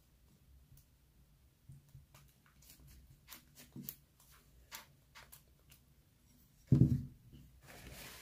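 Homemade glue-and-shaving-foam slime being squeezed and pulled by hand in a bowl, giving faint scattered clicks and small pops. A loud, dull thump comes about seven seconds in.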